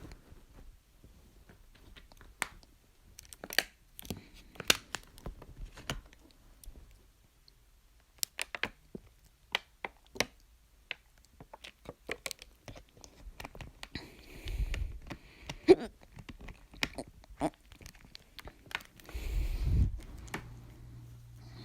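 Hiccups: sharp throat clicks at irregular intervals, with quicker, softer mouth clicks between them. Two breath puffs hit the microphone, one about two-thirds of the way through and a longer one near the end.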